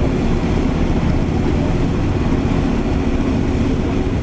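Diesel engine of heavy road-construction machinery running steadily under load, with an even low drone that neither rises nor falls.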